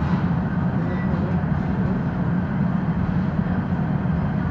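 Steady low-pitched noise of a glassblowing hot shop: gas-fired glory hole furnaces burning and the overhead exhaust hoods running, at an even level throughout.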